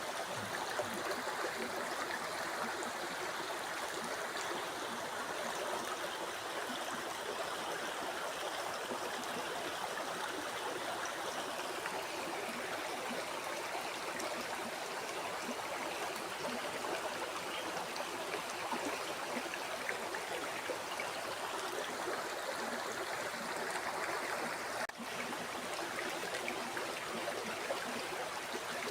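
River water flowing steadily, an even, continuous rush, with one brief dip in level a few seconds before the end.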